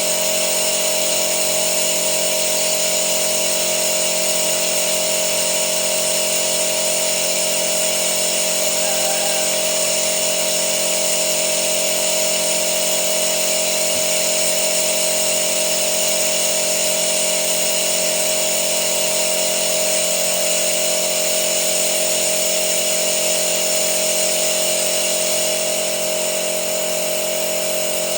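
A machine running at a constant speed, giving a steady mechanical whine and hum with fixed pitches that do not rise or fall, during an engine carbon-cleaning job.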